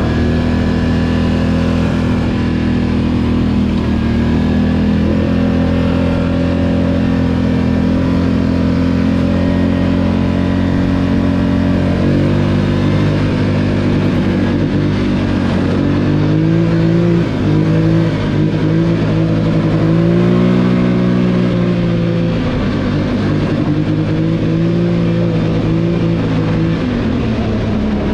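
ATV engine running under way on a trail ride, its pitch steady for the first twelve seconds or so, then stepping up and rising and falling with the throttle for the rest.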